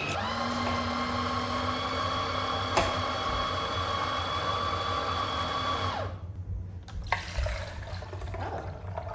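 Electric juicer motor running with a steady whine that shifts up in pitch just after the start. About six seconds in it is switched off and winds down, falling in pitch, and a click follows about a second later.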